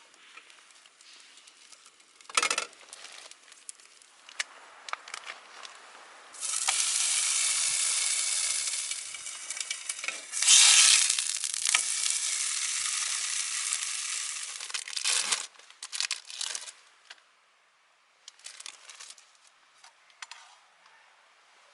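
Food sizzling in a hot pan: the frying hiss starts suddenly about six seconds in, grows louder for a moment around ten seconds, and cuts off abruptly after about nine seconds, with light clicks and rustling before and after.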